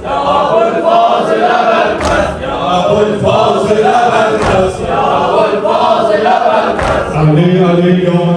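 A group of men chanting a Shia mourning lament in unison, with a sharp beat about every two and a half seconds.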